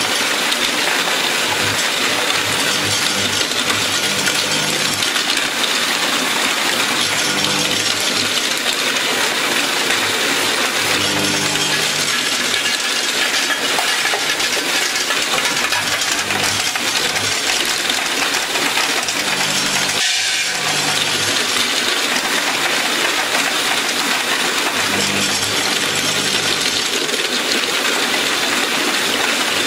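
Elizabeth brush box feeding softgels into blister pockets on a blister packaging line running at full feed, about 400 softgels a minute per line. It makes a steady, dense noise of many small impacts over a low machine hum that comes and goes.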